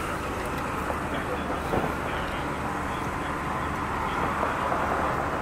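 Transit bus engine idling, a steady low hum heard at the open front door.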